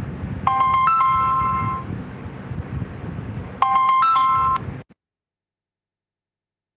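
Mobile phone ringtone: a short electronic tune of steady stepped tones, heard twice. The sound then cuts off to dead silence about five seconds in.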